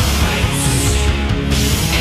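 Loud heavy rock music with guitar and drums, a steady driving beat.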